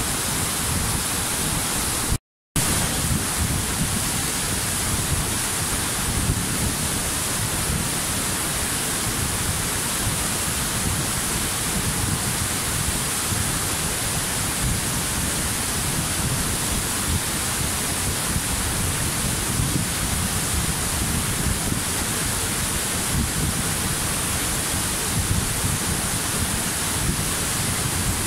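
Waterfall: a steady rush of falling water, with a deep rumble underneath and a bright hiss on top. It cuts out completely for a fraction of a second about two seconds in, then resumes unchanged.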